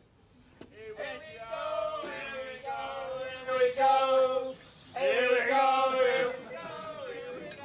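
A man's voice singing long, held notes in two phrases, with a short break about halfway through.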